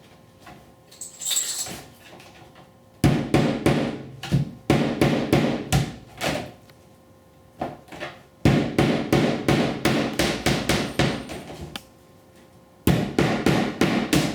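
Hammer driving nails to fasten vinyl siding: three runs of quick, closely spaced blows, separated by short pauses.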